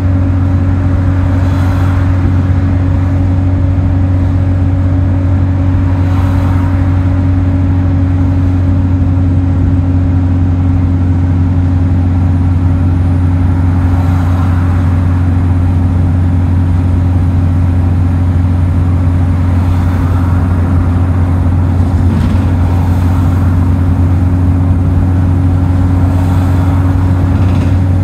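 Single-deck bus heard from inside the passenger saloon while cruising at a steady speed: a constant low drivetrain hum with a steady tone above it, and road noise that swells faintly a few times.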